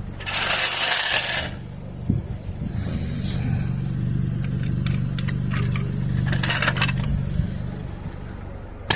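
A short burst of hiss, then a motor hums steadily for about five seconds, with scattered metallic clicks and a sharp click near the end.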